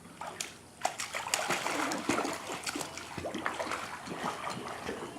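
Water splashing and sloshing in a pool, irregular splashes starting about half a second in and going on throughout.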